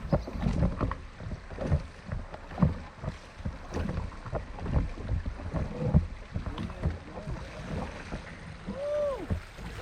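Kayak moving on shallow creek water, with irregular low knocks and splashes from the hull and its paddling. About nine seconds in comes a short squeak that rises and falls.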